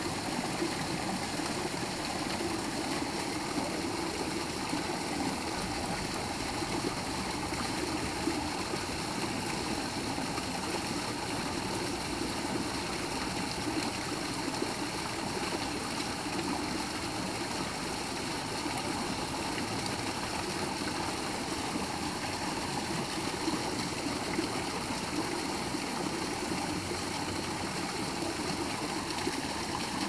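Small garden waterfall pouring over rocks into a pond: a steady, even rush of falling and splashing water.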